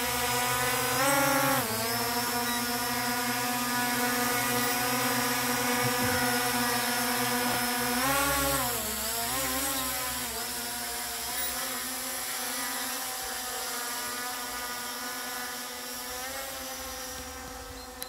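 ZLRC SG906 Pro quadcopter, loaded with a GoPro, its propellers and motors whining steadily in flight. The pitch surges up and back down about a second in and again around eight seconds in as the motors speed up. The sound fades gradually as the drone climbs away overhead.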